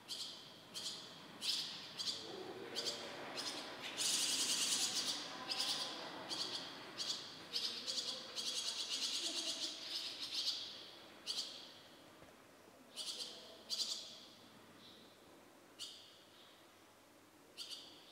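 Fledgling barn swallows calling: short high chirps about once a second, rising twice into loud, rapid continuous chattering (around four seconds in and again around nine to ten seconds in), then thinning to scattered single calls near the end.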